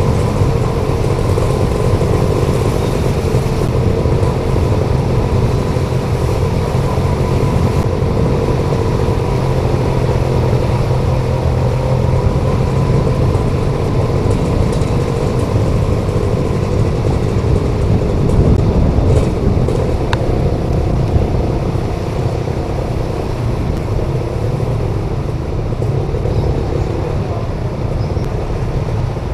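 Road traffic noise, dominated by a motor vehicle engine running steadily close by as a low hum of unchanging pitch.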